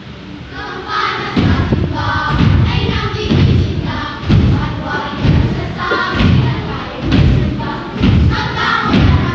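Steady heavy thumps at about two a second, a beat that starts about a second and a half in, under a group of children chanting together.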